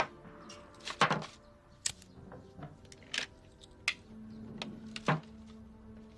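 Scattered sharp clicks and taps from small objects being handled, about six in all, the loudest about a second in and about five seconds in. A faint steady hum comes in around four seconds in.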